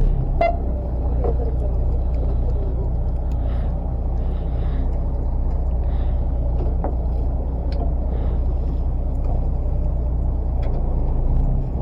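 Fishing boat's engine running steadily, a low drone, with a few faint clicks and knocks on top.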